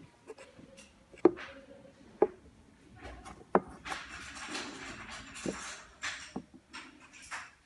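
Aluminium load cells knocked and set down on a wooden board: a handful of sharp knocks spread out, with rustling handling noise between them.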